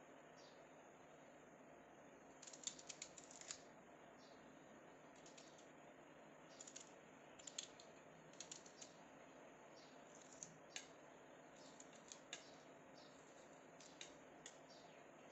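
Faint scattered clicks and taps of a kitchen knife peeling and slicing a red onion against a plastic plate, some in quick runs, over low background hiss.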